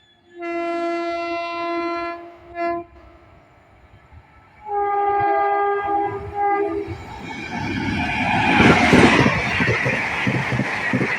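Train horn sounding a long blast, a short blip, then a second blast, followed by a train passing close with its wheels clattering rhythmically over the rail joints, loudest about nine seconds in.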